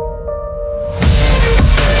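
Electronic hip-hop instrumental: muffled held synth notes over bass, then a rising sweep opens into the full beat about a second in, with heavy bass and drum hits.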